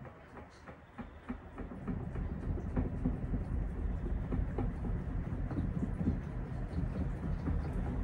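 Panasonic top-loading washing machine with its tub spinning laundry, a low rumble that builds up about two seconds in and then runs steadily, with scattered light ticks over it.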